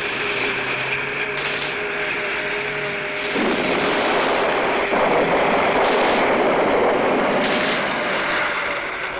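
Continuous roar of battle: massed gunfire and shelling blending into one dense din, growing louder about three seconds in.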